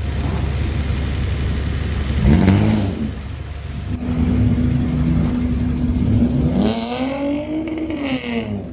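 Car engine with a loud exhaust revving: it rises and drops back about two seconds in, runs steady, then revs up and falls again near the end.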